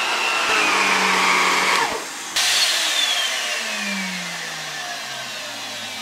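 Central vacuum running with a power head on carpet, a steady rush of suction with a high motor whine. About two and a half seconds in the sound changes abruptly, and then the vacuum motor's whine and hum fall steadily in pitch as it winds down.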